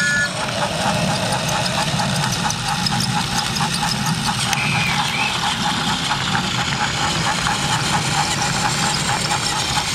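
Battery-powered TrackMaster Thomas toy engine running on plastic track: a steady small-motor whir with fast, even clicking from its gears and wheels.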